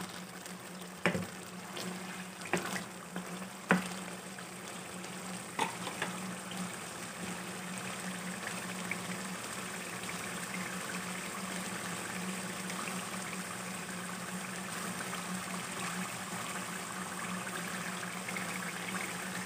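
Turnip-and-mutton curry sizzling and bubbling in oil in a nonstick wok while it is fried down, with a steady hiss under a low steady hum. In the first six seconds a spatula knocks and scrapes against the pan several times as it is stirred.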